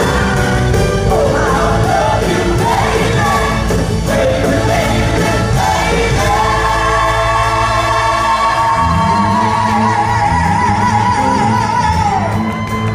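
Live band with a woman singing lead, heard from the audience in a concert hall. She holds one long high note through the second half, which slides down near the end.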